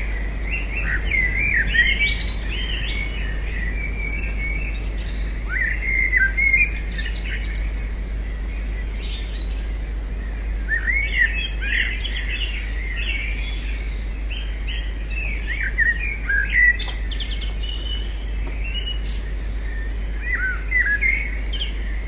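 Small songbirds chirping and twittering in quick warbling phrases that come in bursts every few seconds, over a steady low hum.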